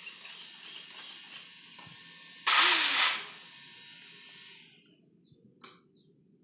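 An RC car's electric drive and steering servo whir in short bursts as the transmitter controls are worked, with one louder, longer burst about two and a half seconds in. The sound then dies away to near silence, with one brief click near the end.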